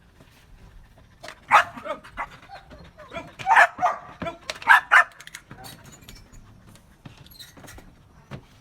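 A Belgian Malinois barking several times, a few sharp barks between about one and a half and five seconds in.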